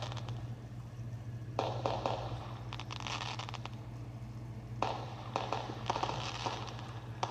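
Crackling fireworks: clusters of rapid sharp pops and crackles come in three bursts, over a steady low electrical hum.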